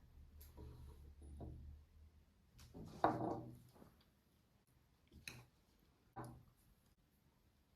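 Quiet household handling sounds: a low hum, then a single knock about three seconds in, followed by two lighter clicks.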